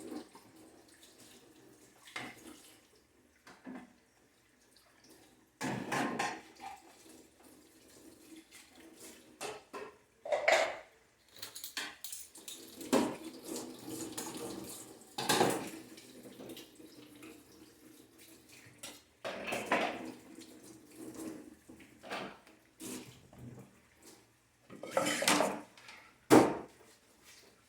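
Washing up at a kitchen sink: dishes and cutlery clattering in irregular bursts while the tap runs off and on.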